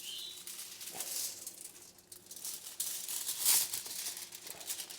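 Irregular light rustling and small clicks of hands handling rosemary sprigs while stuffing a whole gutted fish.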